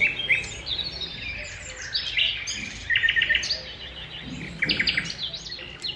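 Small birds singing: a string of short high chirps and quick trills.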